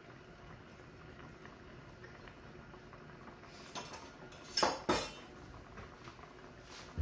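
A metal utensil clinking against cookware: a light knock a little before four seconds in, then two sharp clinks in quick succession just before five seconds, and one more click at the very end.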